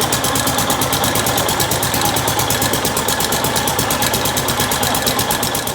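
Gravely tractor engine running steadily, with an even, rapid beat of firing pulses.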